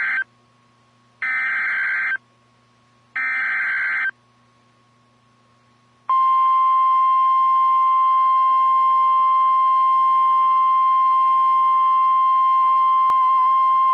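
NOAA Weather Radio EAS alert: the end of one buzzy SAME digital header burst, then two more about a second long with short silences between them. From about six seconds in comes the steady 1050 Hz warning alarm tone, the signal that a warning (here a special marine warning) is about to be broadcast.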